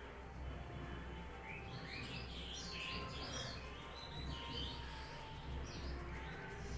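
Birds chirping in quick series of short calls from about a second and a half in, with a few more near the end, over a low steady hum.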